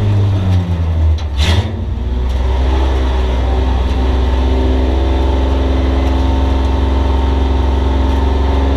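Bomber race car's engine heard from inside the stripped cockpit, running hard on the oval. About a second in, the engine note dips briefly with a short sharp noise, then climbs and holds steady under throttle.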